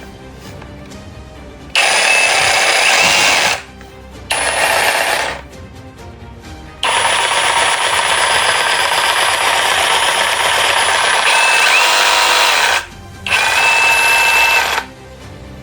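INGCO CJSLI1008 20V cordless jigsaw cutting wood in four runs separated by short pauses. The longest run lasts about six seconds.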